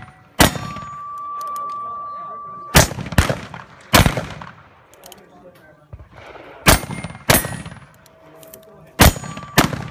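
Blackpowder shots from two single-action revolvers fired alternately, gunfighter style: about eight shots in uneven pairs. Hit steel plate targets ring on with a steady tone after some of the shots.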